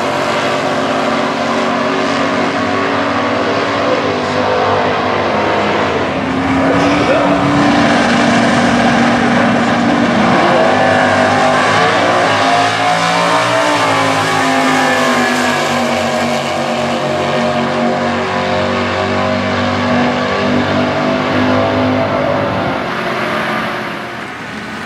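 Stock Eliminator drag-racing cars' engines running loud and steady, with revs rising and falling in the middle stretch. The sound eases off a little near the end.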